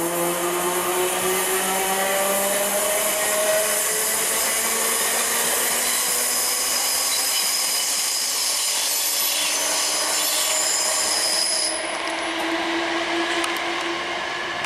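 Electric multiple-unit train's traction motors whining in several tones that rise slowly in pitch as it gathers speed, over steady wheel-on-rail noise. The highest hiss drops away suddenly near the end.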